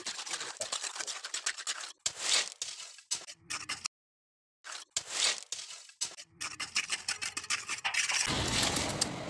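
Rough scraping and scratching in short, irregular strokes, the sound of hand work with cement mortar. It cuts out briefly about four seconds in, and a low rumbling noise comes in near the end.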